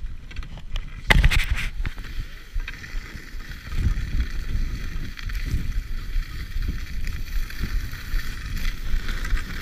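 Wind buffeting a body-mounted action camera's microphone during a fast downhill ski run, a rough, surging rumble, with the hiss of skis running over snow. A sudden loud rush comes about a second in.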